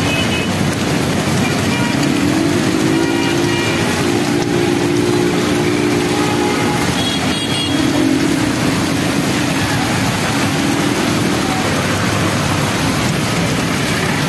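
Heavy rain hissing steadily onto a flooded road, with traffic passing through the water. A vehicle engine rises in pitch about a second in and holds for several seconds, and more engines pass later.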